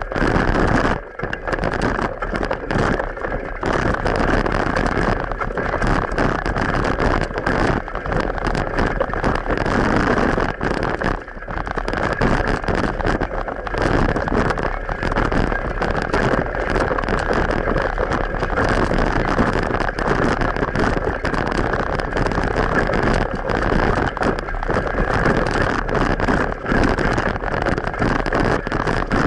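Steady rush of wind and road noise from riding a bicycle, with frequent small knocks and rattles, as heard through an action camera's microphone.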